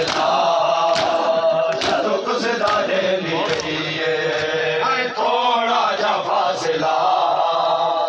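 Men chanting a noha, a Shia mourning lament, in unison. Sharp slaps of matam, hands beating on chests, strike in time about once a second in the first few seconds and more sparsely later.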